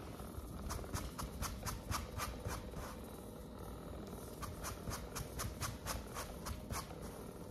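Percussive massage gun running against a dog's body: a steady low buzz, with two runs of sharp clicks at about four a second.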